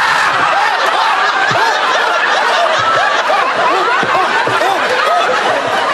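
A studio audience laughing hard and without a break, many voices at once.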